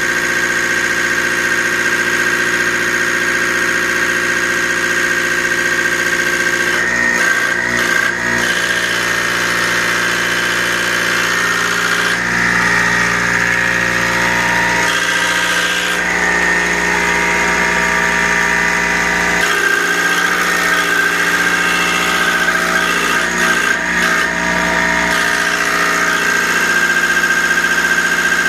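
Genco diesel fuel injection pump test bench running, its drive turning an injection pump under test with a steady mechanical whine and a high squealing tone. The note shifts a few times.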